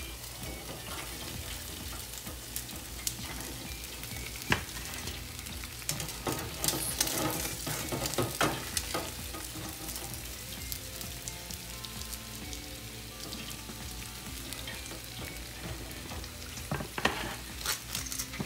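Hot oil in an electric deep fryer sizzling steadily around a deep-fried pork leg that has stopped popping, the sign that it is done. Metal tongs and the wire fry basket clink and clatter as the meat is lifted out, most busily about six to nine seconds in and again near the end.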